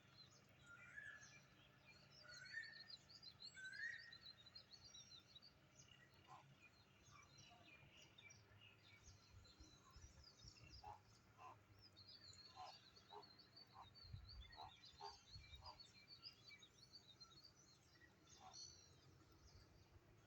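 Several small birds chirping and singing faintly in a dense, high twittering chorus. A few louder rising calls come in the first few seconds, and short repeated lower notes sound through the middle.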